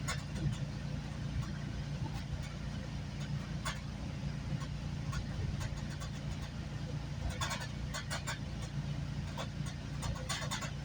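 GO Transit commuter train heard from inside a moving coach: a steady low rumble with a hum, and scattered sharp clicks and rattles. A cluster of clicks comes about seven to eight seconds in, and another near the end.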